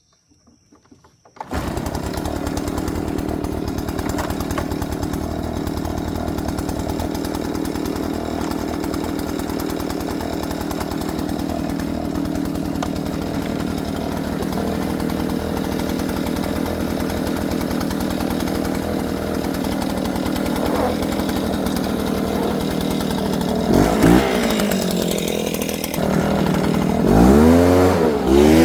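VEVOR 79cc two-stroke gas backpack leaf blower engine, which comes in suddenly about a second and a half in and runs steadily, then is revved up and down a few times near the end.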